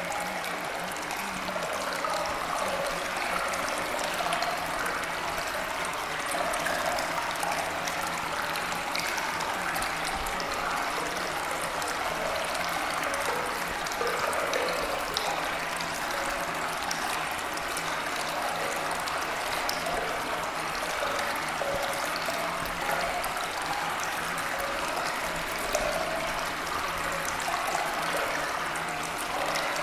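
Steady running water, like a stream, with fine splashing ticks throughout.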